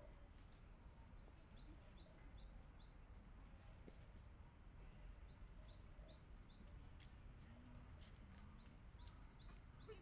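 Faint songbird calling: three runs of about five short, quick, high notes each, spaced a few seconds apart, over a faint low background hum.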